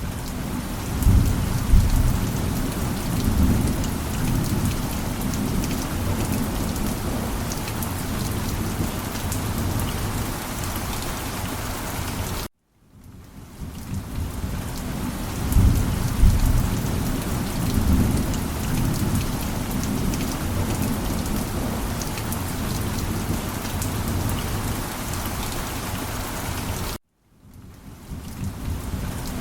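Steady heavy rain with low rolls of thunder. The track cuts to silence twice and fades back in, and a thunder rumble swells a second or two after each restart.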